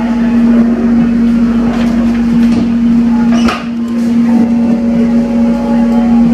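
Running noise inside the cabin of a moving electric airport train: a continuous rumble with a strong steady low hum, and a short swish about halfway through.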